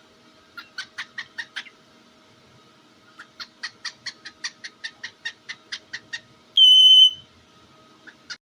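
Cockatiel giving two quick runs of short, clipped calls, about four or five a second, then one loud, steady high whistle lasting about half a second.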